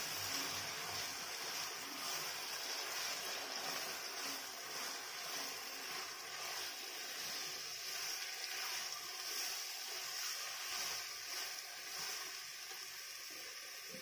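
Ghee sizzling with a steady frying hiss in a nonstick pan as ground dried-date paste is stirred and pressed with a silicone spatula.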